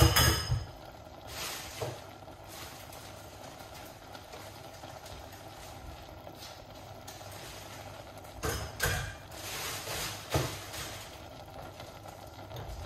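Mixed vegetable stir-fry steadily sizzling and steaming in a stainless steel pan, left to cook down. A few short louder noises come near the start, about two seconds in, and again about eight to ten seconds in.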